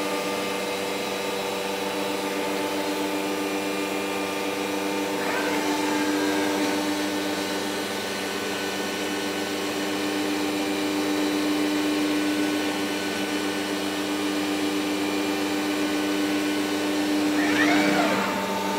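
CNC door machining centre running: a steady machine hum with a strong, even tone, and brief sweeps in pitch about five seconds in and again near the end.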